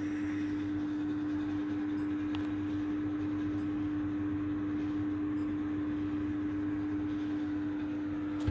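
A steady machine hum holding one even, clear tone.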